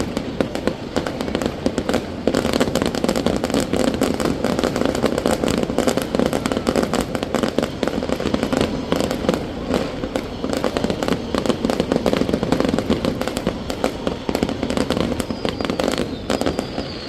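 Fireworks display going off in rapid, unbroken succession: a dense crackle of bangs and pops with no pause between them. A faint falling whistle sounds near the end.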